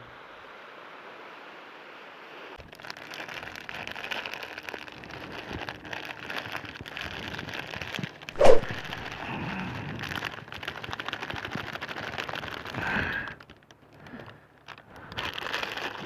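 Surf washing over rocks, with crackling noise on the microphone and one loud knock about eight and a half seconds in.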